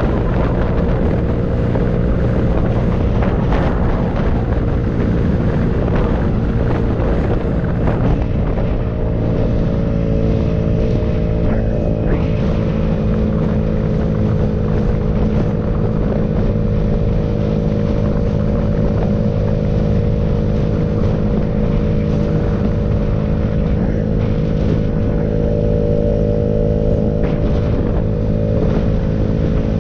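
A vehicle's engine running at a steady cruising speed, its pitch holding level throughout.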